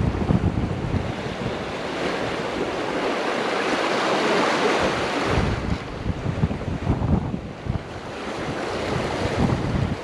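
Ocean surf washing in on the shore, one wave swelling to a hiss about four seconds in and then easing, with wind buffeting the microphone before and after it.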